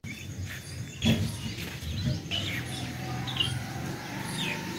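Small birds chirping, with many short high chirps repeating throughout. A single dull thump sounds about a second in.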